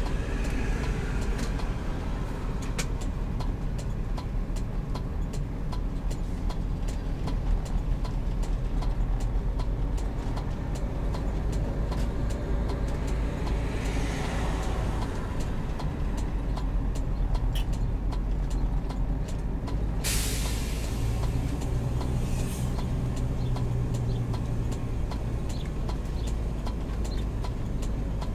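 Heavy-goods-class motorhome driving, its engine droning steadily under many small rattles and clicks. A sudden hiss cuts in about twenty seconds in and fades over a second or two.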